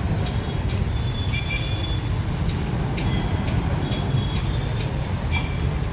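Street traffic noise: a steady low rumble, with several short high-pitched tones cutting in and out.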